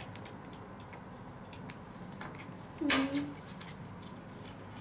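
Scattered light clicks and taps of plastic toy keys and padlocks being handled on a tabletop, with a short voiced sound about three seconds in.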